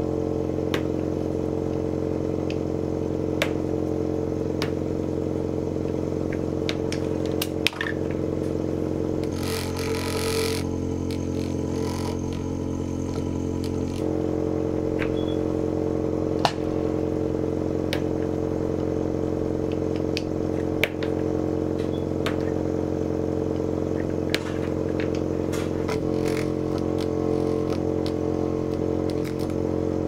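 Steady mechanical hum of laboratory equipment, with scattered light clicks and taps of plastic microcentrifuge tubes being handled in a plastic rack, and a brief hiss about ten seconds in.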